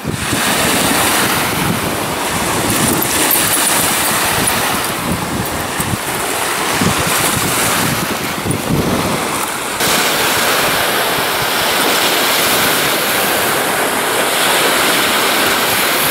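Small lake waves breaking and washing up onto a sandy beach, a steady rushing noise, with wind on the microphone.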